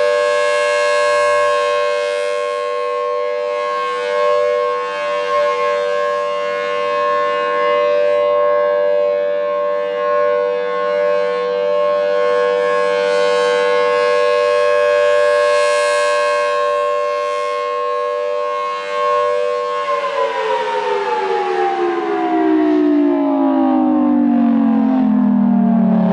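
Federal Signal Thunderbolt 1000AT mechanical outdoor warning siren sounding a steady Full Alert tone. About twenty seconds in, the signal ends and the siren winds down, its pitch falling steadily.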